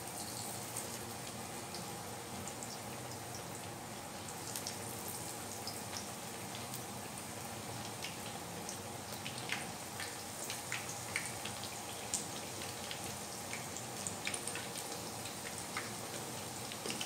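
Battered tempe slices frying in hot oil in a nonstick pan: a steady sizzle with scattered crackles and pops, the pops coming more often from about nine seconds in.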